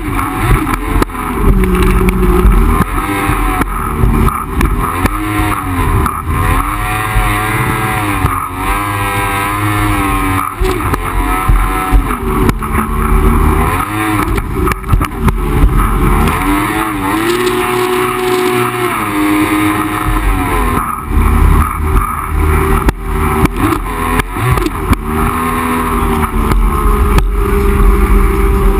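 Two-stroke engine of a Yamaha jet ski running at speed, its pitch rising and falling again and again as the throttle is worked. Wind buffeting and the hiss of water spray run underneath.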